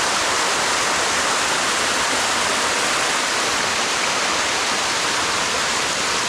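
Waterfall water rushing steadily over the rock close by, a constant even hiss.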